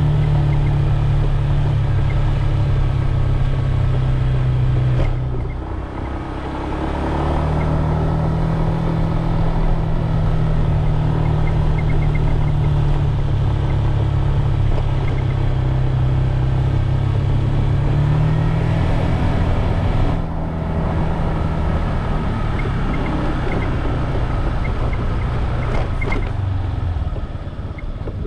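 Motorbike engine running while riding along. It eases off briefly about five seconds in, again around twenty seconds and near the end, then picks up again.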